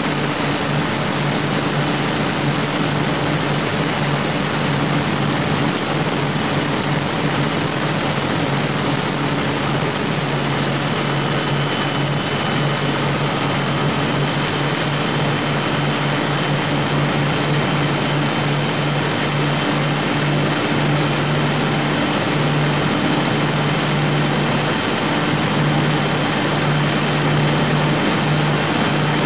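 Prototype powerboat running steadily under way, its twin Scania 12-litre six-cylinder diesels giving an unchanging drone under a constant rushing noise.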